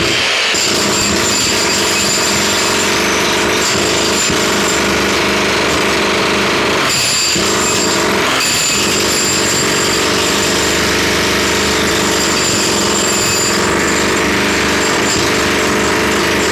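Jackhammer hammering continuously, stopping briefly twice about halfway through.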